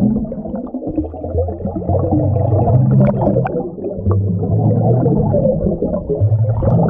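Muffled ambient electronic music: held low bass chords that change every second or two, with little treble.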